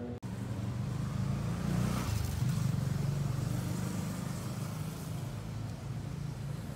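A car going past on the street: engine and tyre noise swell to a peak about two seconds in and then fade, over a steady low engine hum.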